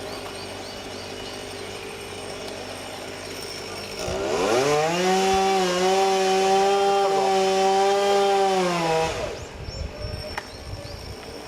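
Chainsaw ticking over, then revved up sharply about four seconds in and held at high revs for around four seconds before the throttle is released and the engine winds back down.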